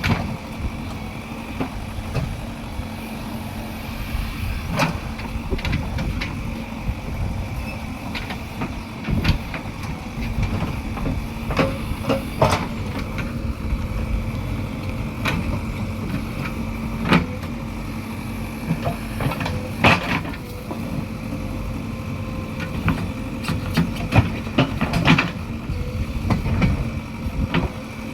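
JCB 3DX backhoe loader's diesel engine running steadily, with sharp clanks and knocks scattered irregularly over it, a few seconds apart.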